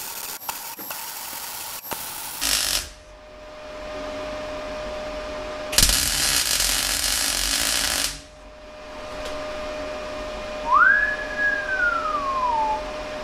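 MIG welder arc crackling as a steel strap is welded onto the engine stand's tube. It comes in two spells: a few short tacks in the first three seconds, then a steady bead of about two seconds. A steady faint tone runs underneath, and near the end there is a single whistle that rises and then falls.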